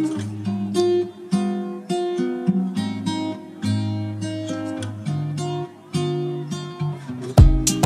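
Background music: acoustic guitar strumming chords, with a heavier beat of low thumps coming in near the end.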